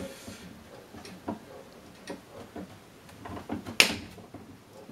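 Scattered light clicks of hand cutters working at a wire harness, with one sharp snip nearly four seconds in as a wire is cut through.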